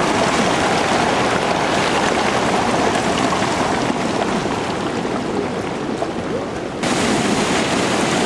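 A mudflow of water, mud and stones rushing down a channel in a steady, loud roar of churning water. The sound shifts abruptly about seven seconds in.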